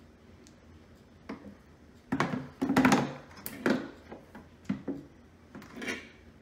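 A run of knocks and short scrapes from a serrated uncapping knife and a wooden honey frame against a plastic uncapping tub, loudest about two to four seconds in, as the knife is put down in the tub.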